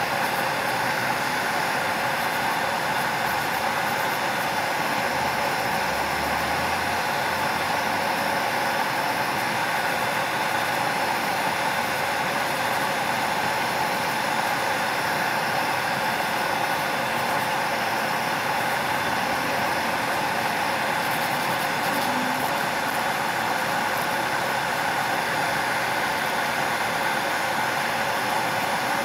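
A small motor running with a steady whir and hiss that never changes.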